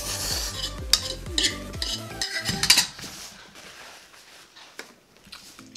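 Noodles being slurped and shovelled from a ceramic bowl, the fork scraping and clinking against the bowl, in a dense run of sounds over the first three seconds. After that it goes quieter, with only a few light clicks.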